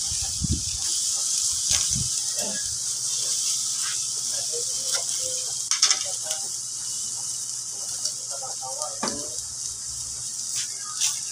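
Chicken sizzling on the grate of a charcoal grill over hot coals, a steady hiss with scattered short crackles and clicks, a sharper cluster about halfway through. The juices are dripping onto the coals and making them flare.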